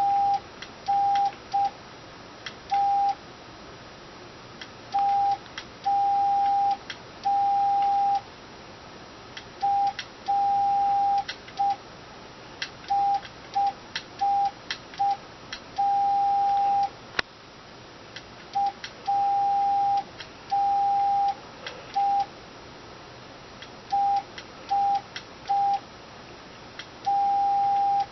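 Morse code sent by hand on a straight key, heard as a single steady mid-pitched tone switched on and off in short and long beeps with uneven, hand-sent spacing. Light clicks sound throughout.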